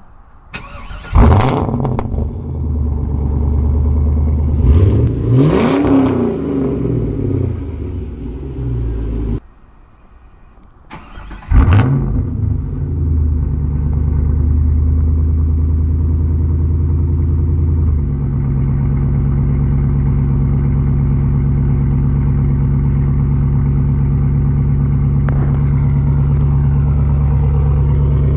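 Pontiac Trans Am WS6's LS1 V8 exhaust: the engine starts, is revved once with a rise and fall in pitch, and cuts off. It then starts again and runs at a steady idle that drops a step lower about two-thirds of the way through.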